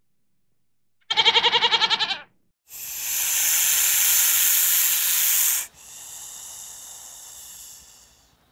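A goat bleats once, a quavering call of about a second. Then a snake hisses loudly for about three seconds, followed by a softer, steadier hiss that fades near the end.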